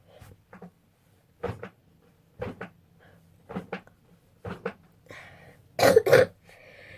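A child coughing repeatedly: short coughs about once a second, then two louder coughs in quick succession near the end.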